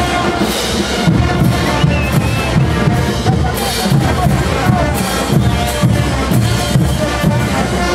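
Live brass band playing caporales music, with a bass drum keeping a steady beat of about two a second and hand cymbals crashing.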